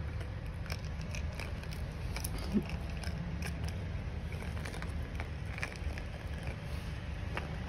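Light clicks and crinkles of a small plastic wrapper as two kittens bat and tug at it on concrete, over a steady low background rumble. One short, louder low sound about two and a half seconds in.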